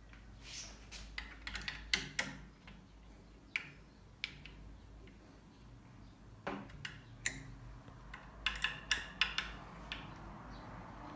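Irregular light metallic clicks and taps as an aluminium adjustable stock-comb mechanism is worked by hand in a bench vise. They come in small clusters, with a quick run of them a little before the end.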